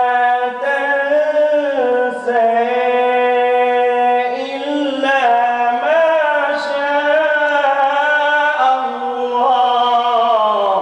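A man reciting the Quran in a melodic, drawn-out style into a microphone. He holds long ornamented notes whose pitch glides up and down, and the phrase falls away near the end.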